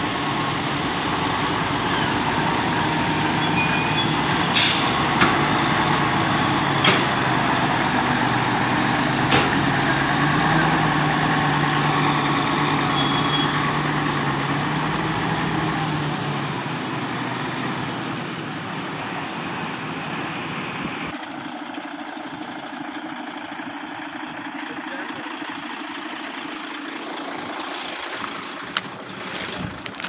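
Concrete pump truck's diesel engine running steadily, with four sharp clicks in the first ten seconds. The engine sound fades out about two-thirds of the way through, leaving a quieter background.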